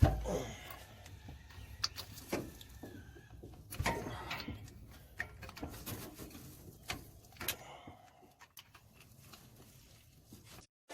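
Scattered metal clicks and clanks of hand tools working on a Chevy 350 V8 as its cylinder-head bolts are undone, with a heavier thump right at the start and another about four seconds in.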